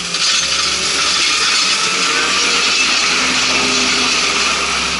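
Small sidewalk wheel loader with a plow blade and a rear gravel spreader passing close by, its engine running and a loud steady hiss as it scatters grit on the icy walkway so people don't slip. The noise swells just after the start and eases off near the end.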